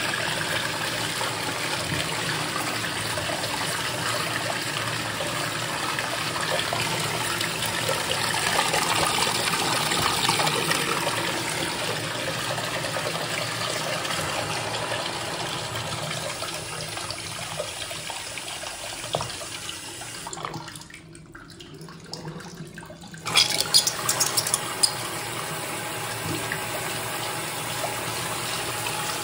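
Water rushing and swirling through a hose-fed miniature Saxonette toilet bowl in a continuous flush, draining into a sink. A little past two-thirds of the way through, the rush dies down for about three seconds, then returns with a few sharp splashes.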